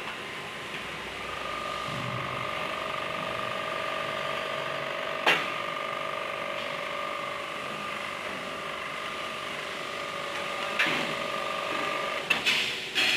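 Punch machine running: a steady motor hum starts about a second in and cuts off near the end, with one sharp knock about five seconds in and a few clanks near the end.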